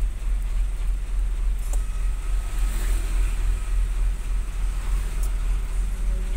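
Steady low engine rumble of a stopped vehicle idling, heard from inside its cab, with faint street noise and a few light clicks.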